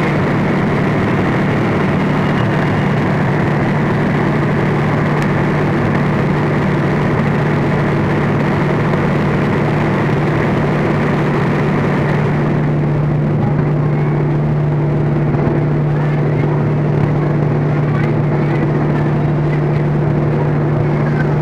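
Steady low drone of trains at a station platform, a constant hum with overtones, while an electric commuter train pulls in alongside. The higher hiss thins out about halfway through.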